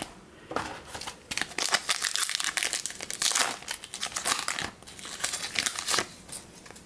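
Foil wrapper of a 2020 Topps Allen & Ginter Chrome trading-card pack being torn open and peeled back by hand, a dense, crackling crinkle from about half a second in until near the end.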